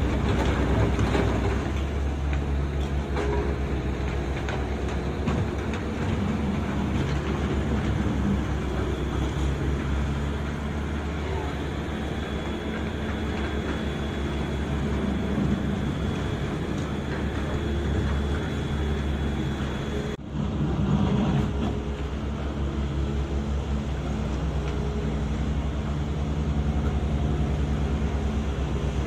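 Diesel engine of a heavy construction machine running with a steady low rumble, cutting out for a split second about twenty seconds in.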